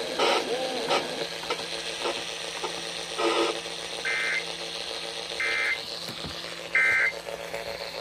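Three short bursts of EAS/SAME digital data tones, a warbling two-pitch buzz, from a radio speaker, each burst about a third of a second long and spaced a little over a second apart. This is the end-of-message code that closes the severe thunderstorm warning broadcast.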